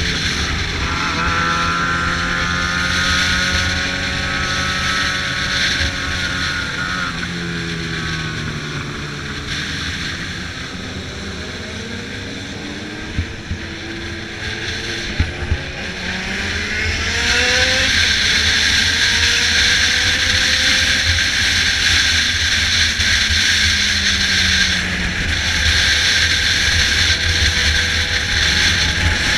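Motorcycle ride heard from the bike. The Yamaha XJ6's inline-four runs through an Atalla 4-into-1 exhaust, its pitch falling and rising with the gear changes, under a rush of wind on the microphone that grows much louder about seventeen seconds in as speed builds. A few sharp knocks come around halfway.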